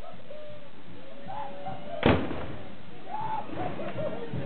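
A single loud musket shot about two seconds in, over background crowd voices.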